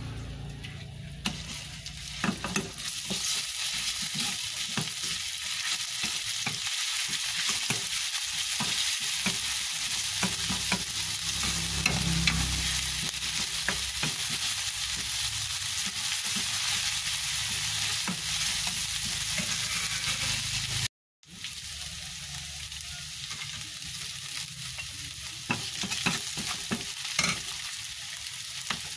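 Food frying and sizzling in hot oil in a pan, stirred with a spatula that scrapes and clicks against the pan. The sound cuts out briefly about two-thirds of the way through.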